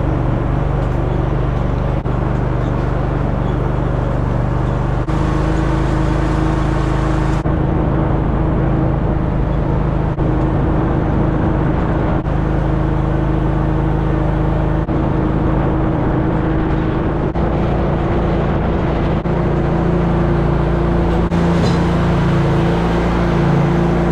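A vehicle's engine running steadily while driving, its pitch stepping to a new level a few times.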